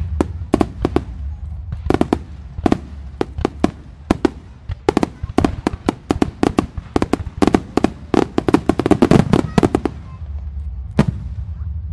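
Fireworks firing in rapid succession: a barrage of sharp bangs and cracks that thickens into a dense volley about eight to ten seconds in, then a single bang near the end, over a steady low rumble.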